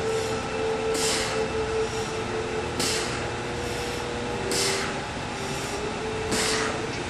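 A person's sharp, hissing exhalations, four of them about two seconds apart, in time with dumbbell squat-and-curl repetitions, over a steady background hiss.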